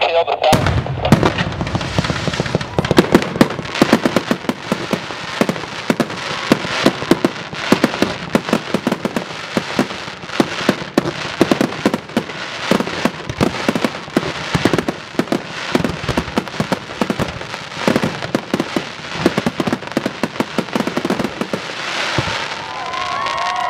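Fireworks going off in a dense, continuous barrage: many sharp bangs and crackling reports every second, without a break.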